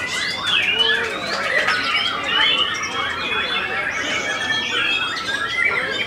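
White-rumped shamas singing: a fast, unbroken stream of varied whistles, rising and falling glides, chirps and harsh notes, several birds overlapping.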